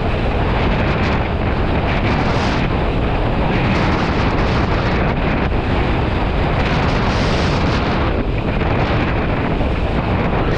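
Strong wind buffeting an action camera's microphone as a kitesurfer rides at speed, a steady loud rush with water hissing under the kiteboard.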